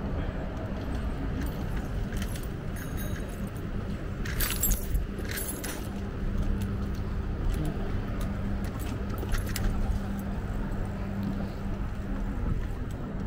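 Wind and road rumble from an electric bike being ridden along a city street, with a steady low hum. Light metallic jingles and rattling clicks sound now and then, the clearest about four to six seconds in.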